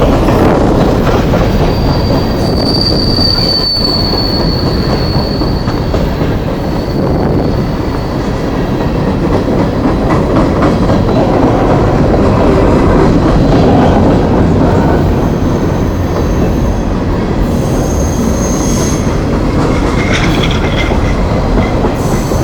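Long coal train's cars rolling past on the main line, a steady loud rumble and clatter of wheels on rail. High wheel squeals ring out a couple of seconds in and again in the second half.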